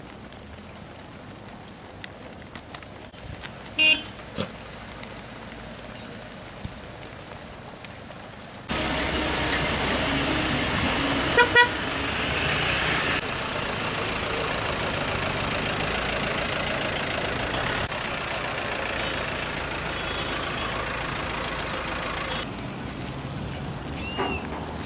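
Road traffic: a vehicle's steady rushing noise starts abruptly about a third of the way in, and a car horn sounds twice in quick succession a little before halfway.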